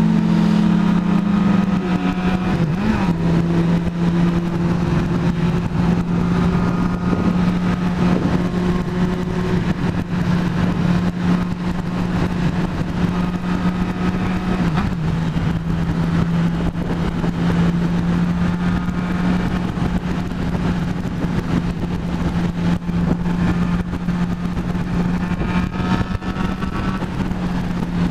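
Motorcycle engine running at a steady cruising speed on the highway, heard from on board, with wind noise over the microphone. The engine note drops slightly in the first few seconds, then holds steady.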